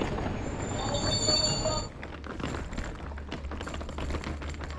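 Busy train station ambience: a jumble of distant voices and movement with a few high steady tones, changing abruptly about two seconds in to a quieter low hum with scattered clicks and footsteps.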